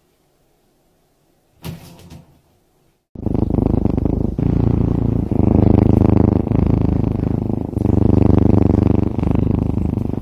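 A fluffy white cat purring loudly and steadily as it is stroked on its belly, in long runs broken by short dips about every one to one and a half seconds. The purring starts about three seconds in, after near silence with one brief faint sound.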